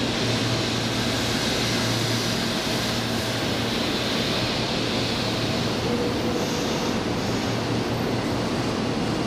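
A 300 series Shinkansen standing at the platform, giving off a steady low hum under an even rushing hiss.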